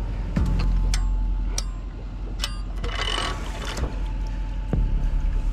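Boat trailer winch and its ratchet: several sharp metallic clicks at uneven intervals, over a steady low rumble.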